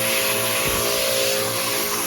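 An electric motor running steadily: a held whine over a strong hiss.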